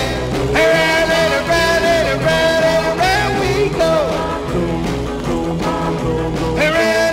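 Rock and roll twist record playing from a 45 rpm vinyl single: long held notes over a steady bass beat.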